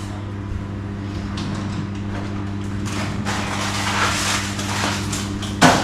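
Microwave oven running with a steady hum. Some rustling handling noise in the middle and a short knock near the end.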